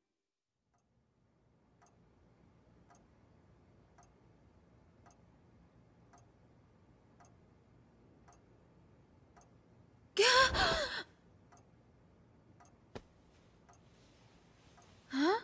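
A clock ticking slowly, about once a second, in a quiet room. About ten seconds in comes a short, loud vocal sound from the sick girl, and near the end a short vocal sound rising in pitch.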